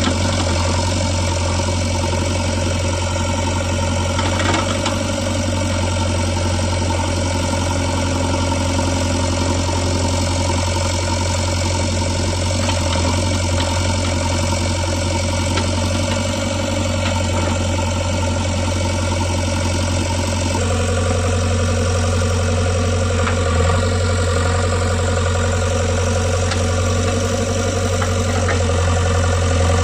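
JCB 3DX backhoe loader's diesel engine running steadily, its tone changing about twenty seconds in.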